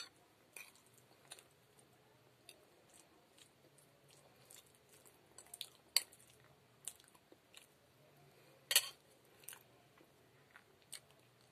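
A person chewing and eating close to the microphone, with scattered irregular clicks and taps. The two loudest clicks come about halfway through and again about three-quarters of the way in.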